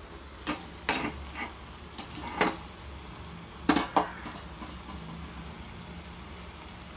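Metal kitchen utensils clinking and knocking against a pan and a steel stovetop, about seven times in the first four seconds and loudest as a double knock near four seconds in. Oil frying with a steady faint sizzle underneath.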